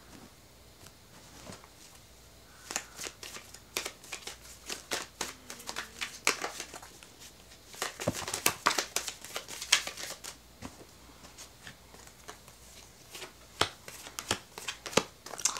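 Tarot cards being shuffled by hand: a quiet start, then from a few seconds in a long run of irregular soft flicks and clicks, with cards laid down on a bedspread near the end.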